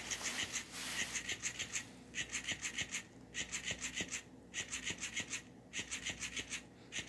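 Battery-powered robotic trout cat toy flopping on carpet: its motor and tail joints make a rapid, mechanical clicking buzz. The buzz comes in runs of about a second, broken by short pauses. The joints are noisy and unlubricated.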